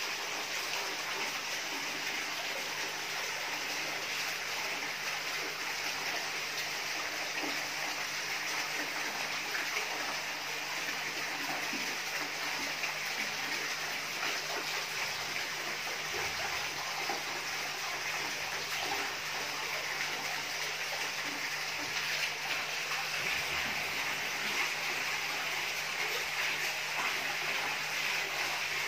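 Running water splashing and trickling steadily into a fish pond, over a faint steady low hum.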